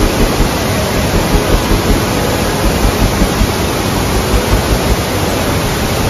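Large waterfall cascading onto boulders: a loud, steady rush of white water.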